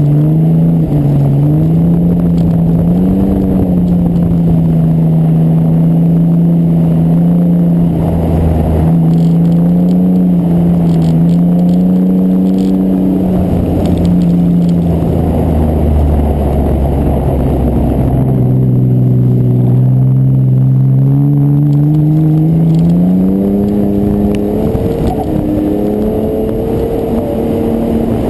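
Mitsubishi 3000GT's V6 engine running under load, its pitch rising and falling with the throttle: mostly held fairly steady, dropping lower about two-thirds of the way through and climbing again near the end. A constant rush of wind and tyre noise lies under it, picked up by a microphone outside the car.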